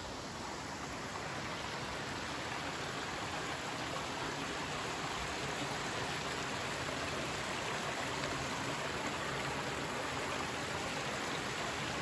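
Creek water rushing over and between rocks, a steady rush that grows a little louder over the first few seconds.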